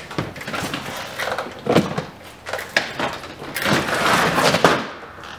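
Rummaging in a box of goods: rustling and scraping of packaging, with a few short knocks as items are handled and pulled out.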